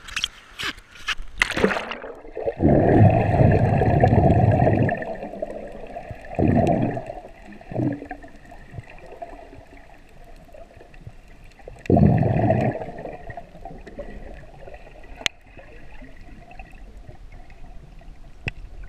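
Choppy seawater splashing over a GoPro at the surface, cut off about two seconds in as the camera goes under. Then muffled underwater sound, with several loud surges of water rushing around the camera: a long one just after going under, and a shorter one about twelve seconds in.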